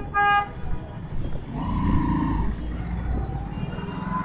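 Busy street traffic: a vehicle horn gives two short toots at the start, over the low rumble of engines in slow traffic, with a person calling out about two seconds in.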